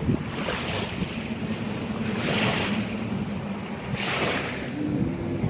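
Ocean waves washing ashore, three swells of surf about two seconds apart, over a steady low rumble.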